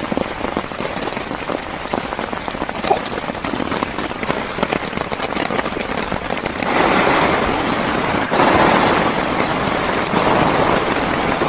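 Heavy rain falling on a plastic shelter: a dense, steady hiss full of small drop impacts, getting heavier a little past halfway.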